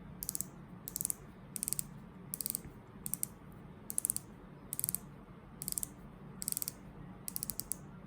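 Rotating dive bezel of a Sea-Gull Ocean Star Pro diving watch being turned by hand, clicking through its detents. The clicks come in short quick runs of several clicks, about one run every 0.8 seconds.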